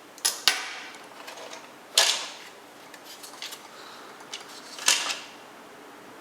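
Handling clicks and knocks while the bottom faceplate of a Roomba 560 robot vacuum is unscrewed and taken off: two quick clicks at the start, then sharp knocks about two seconds in and again about five seconds in.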